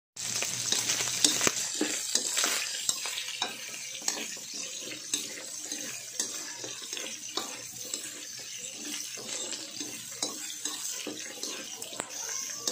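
Cubes of pork belly sizzling in a metal wok as they fry in their own rendering fat, with a metal spatula repeatedly scraping and clicking against the wok as they are stirred.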